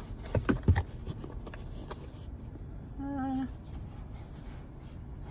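Handling noise from a shoe and its cardboard box: a few knocks and rustles in the first second as the shoe is turned over. About three seconds in comes a short hummed 'hmm'.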